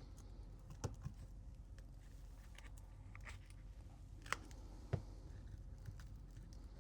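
Scattered sharp clicks and taps of small repair tools against the iPhone 12 Pro's body as its shattered screen is worked loose, over a low steady hum.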